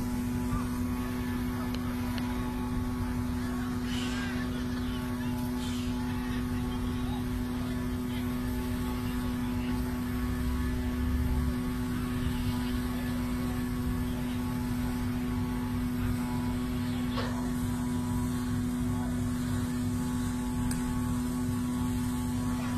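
An engine running at a constant speed, giving a steady, even-pitched drone that never changes, over a wash of background noise.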